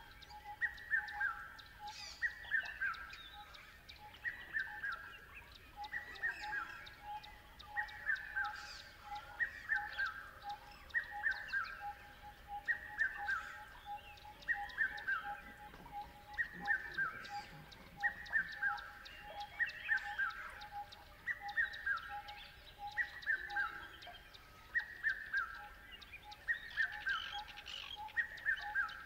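Birds calling: one repeats a falling whistled phrase about once a second, in sets of three, over a steady run of quick, even low notes and scattered high chirps.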